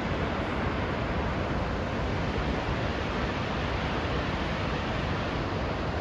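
Steady rushing of a large waterfall, the Upper Falls of the Genesee River, pouring into the gorge.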